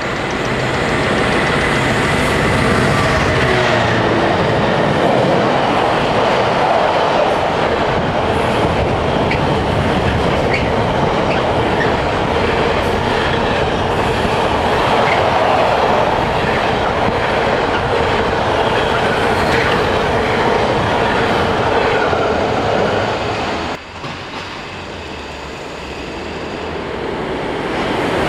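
A long container freight train passes close by at speed: a steady rumble of wagons with clickety-clack from the wheels over rail joints. It cuts off abruptly about four seconds before the end. A quieter rumble then builds as an electric locomotive hauling passenger coaches approaches.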